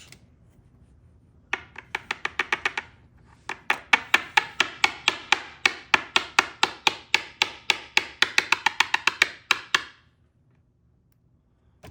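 Rapid sharp taps on a 1959 Mercury ignition lock cylinder: a short run of about ten, a brief pause, then a long steady run at about six taps a second that stops near the end.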